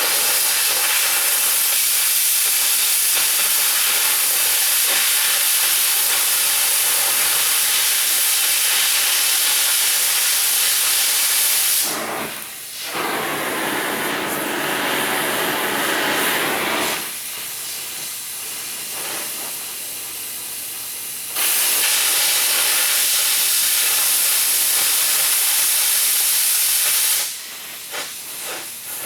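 Steady, loud hiss of a gas cutting torch cutting steel C-channel. It breaks off about twelve seconds in and comes back about nine seconds later, then stops again near the end.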